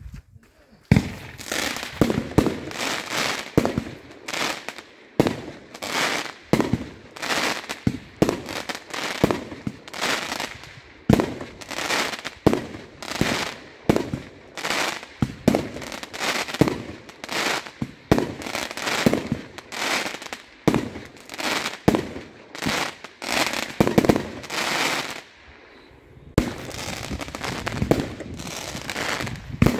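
Aerial fireworks going off one after another, about one or two sharp bangs a second, each followed by a longer hiss. About 25 seconds in there is a short lull, then a denser, more continuous stretch of hissing and bangs.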